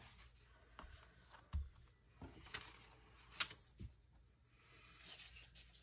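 Faint paper rustles and a few light taps of craft materials being handled on a table, scattered through the first four seconds.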